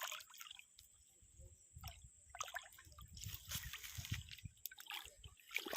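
Quiet, irregular sloshing and dripping of river water, with scattered small knocks and handling noise, as a large catla is landed at the water's edge.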